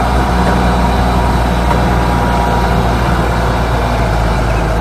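Diesel engine of a Grove RT530E rough-terrain crane running steadily, a constant low engine drone.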